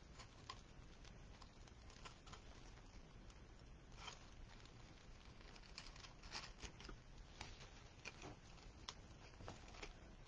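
Near silence with faint scattered clicks and rustles of hands handling a ribbon and deco mesh wreath.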